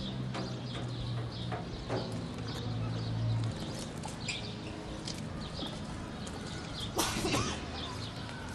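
Small birds chirping on and off over a low steady hum, which drops away about three and a half seconds in, with a few sharp knocks and a louder noisy rustle about seven seconds in.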